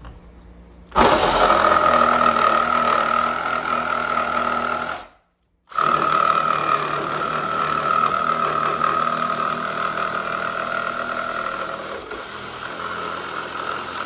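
Ryobi 18-volt cordless reciprocating saw running on a small stock battery, its wood-cutting blade sawing through an old wooden stud. It starts about a second in, stops for a moment near five seconds, then runs on steadily with a high motor whine.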